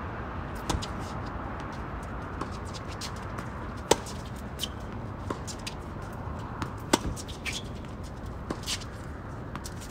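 Tennis rally: sharp pops of racket strings striking the ball about every three seconds, loudest about four and seven seconds in, with fainter clicks between, over a steady low outdoor rumble.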